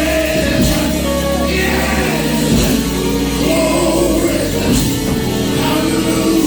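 Live gospel praise music in church: a band playing with voices singing along over a steady bass.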